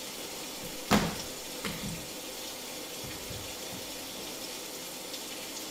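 Steady hiss of falling rain. A sharp knock comes about a second in, with a softer one shortly after.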